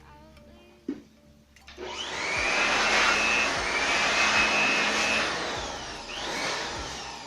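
A small electric motor blowing air starts about two seconds in and runs loud with a steady whine. Then it spins down with a falling pitch, with a brief burst of speed again near the end.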